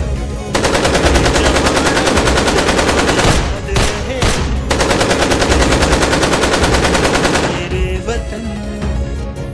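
Rapid automatic gunfire in two long bursts, with a short break in the middle, over background music.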